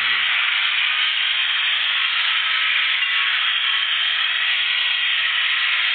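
A steady, loud hiss that holds even throughout.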